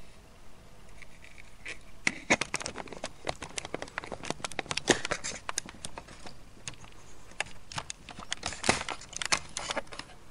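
Handling noise: a dense, irregular run of light clicks and crinkly rustles, starting about two seconds in and bunching up around the middle and near the end.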